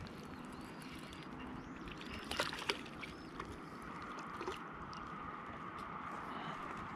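Spinning rod and reel being worked as a hooked short-nosed tripodfish is reeled in to the rocks, with low handling rumble and two sharp clicks about two and a half seconds in. The fish splashing at the surface near the end.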